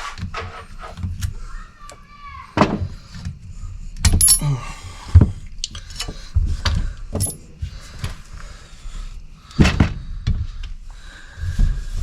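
Irregular metallic clinks, knocks and clanks of hand tools and small valve parts being handled as a tractor hydraulic valve is taken apart, with a few louder sharp clanks.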